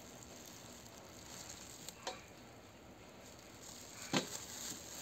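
Faint crackly handling noise from a plastic-gloved hand and a feeding syringe as a kitten is syringe-fed, with a couple of small clicks about two seconds in and a sharper click about four seconds in.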